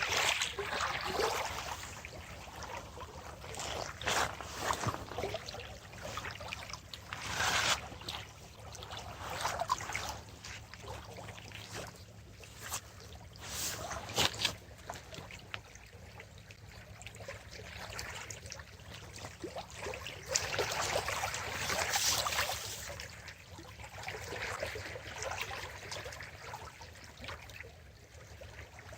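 Water lapping and trickling in irregular surges over a faint steady low hum.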